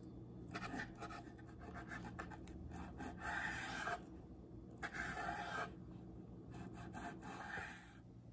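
Chef's knife slicing raw pork loin on a wooden cutting board: the blade is drawn through the meat in four separate strokes, each under a second, with light clicks of the blade on the board between them.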